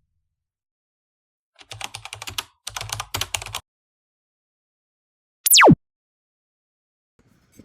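Two quick bursts of rapid keyboard-typing clicks, then a short, loud tone that sweeps steeply down from very high to low pitch, the loudest sound here. Between them there is dead silence.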